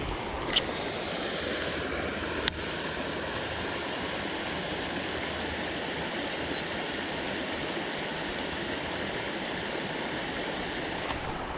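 Steady rushing of water pouring in over rocks at a pond's inlet, with two sharp clicks in the first few seconds.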